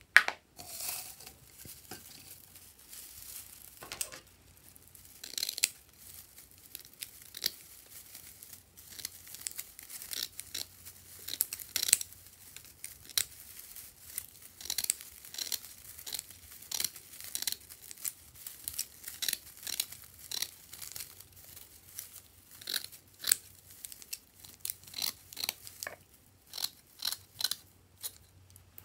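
Scissors snipping strands of tinsel, a long, uneven run of short, crisp snips with the crinkle of the cut tinsel.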